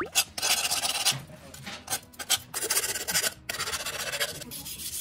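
Hand file rasping along the ground edge of a polished steel armour plate in a series of strokes, some long and some short, smoothing and deburring the edge after grinding.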